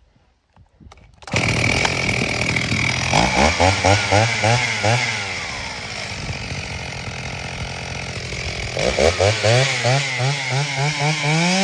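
Stihl 028 Super two-stroke chainsaw, starting suddenly about a second in and running loud. In two spells its engine revs rapidly up and down, about three times a second; between them it runs steadier and a little quieter, and near the end it holds a steady high rev.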